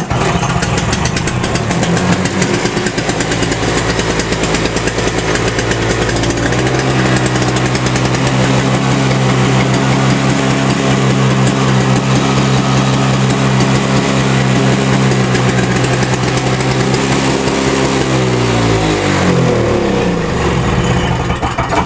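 Toro 7 hp two-stroke snowblower engine starting cold on choke and running steadily, settling into a stronger, even note about six seconds in. Near the end it winds down in pitch and stops.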